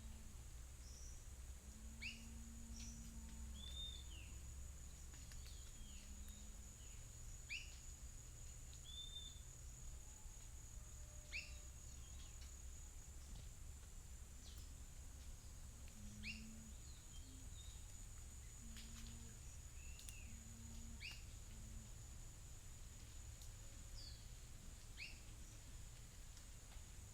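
Birds calling in a faint outdoor soundscape: short, sharply rising chirps every second or two, over a steady high-pitched insect drone and a low background rumble.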